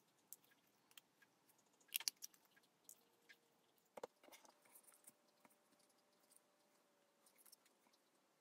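Mostly near silence, broken by a few faint sharp clicks: a quick cluster about two seconds in and one more about four seconds in, from a hand-held paper punch punching small dots out of paper, with light paper handling.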